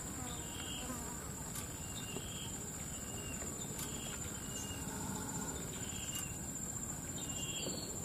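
Forest insects: a steady high-pitched whine, with short chirps repeating under it about once or twice a second.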